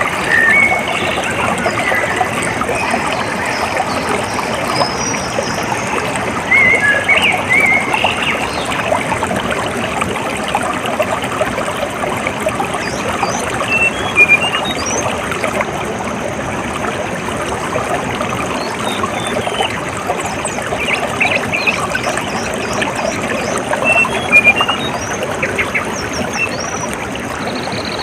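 Water trickling and running steadily, with short bird chirps breaking in several times.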